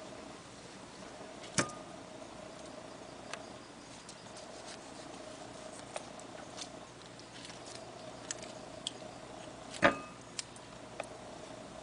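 A kitchen knife cutting grapefruit segments out of their membranes, with faint small clicks and ticks over a steady faint hum. Twice, about a second and a half in and again near the end, there is a sharp, briefly ringing clink of the knife against the ceramic bowl.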